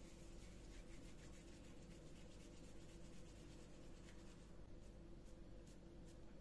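Faint soft pats and rubbing of hands rolling and pressing raw minced-meat köfte into flat patties, over a steady low hum.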